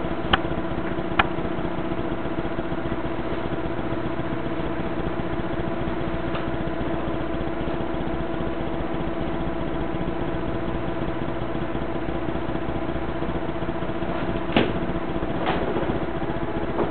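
Window air conditioner running with a steady hum. Two sharp clicks come about a second in, and a couple of soft knocks come near the end.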